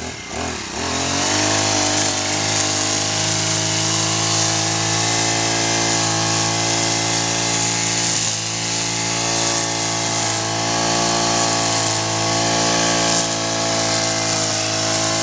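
The small petrol engine of a Bronson 1.5 hp brush cutter revs up from idle in the first second, then runs at a steady high speed with a few brief dips as it trims grass.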